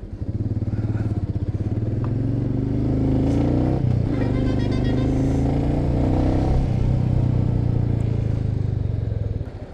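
Royal Enfield Meteor 350's single-cylinder engine running as the motorcycle pulls away and accelerates. The pitch climbs, falls back at a gear change about four seconds in, then climbs again before easing off with another shift.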